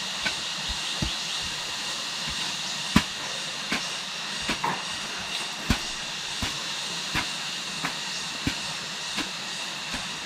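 Dull knocks, irregular and about one or two a second, over a steady high hiss; one knock about three seconds in is the loudest.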